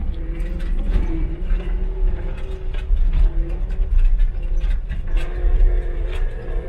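John Deere 324E skid steer's diesel engine running under load, with a whine that wavers in pitch and frequent clanks and creaks from the loader and its attachment at work.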